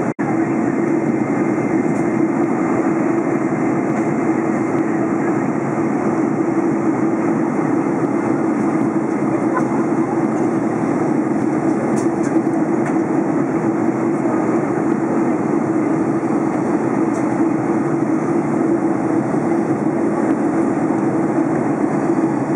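Steady cabin noise inside a Boeing 747-400 in cruise flight: the drone of its Rolls-Royce RB211 turbofans and rushing airflow, a constant low hum over an even rushing noise.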